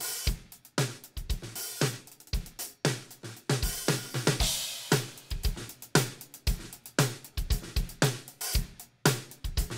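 Drum kit recording (kick, snare, hi-hat and cymbals) played through a Thermionic Culture Phoenix SB valve compressor on the drum bus, heard as a busy beat of sharp hits. The compressor is being switched in and out with its bypass toggles for comparison.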